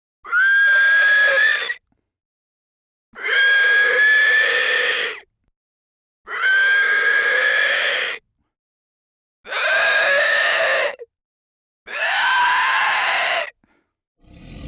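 Monster scream sound effect: five separate high, rasping shrieks, each lasting one and a half to two seconds, with dead silence between them. A low rumbling sound begins at the very end.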